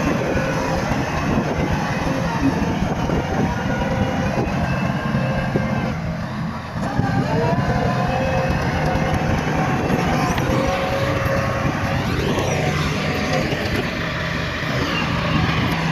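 Bulldozer's diesel engine running with a steady drone, with higher whining tones that slide in pitch over it and a brief dip in loudness a little past the middle.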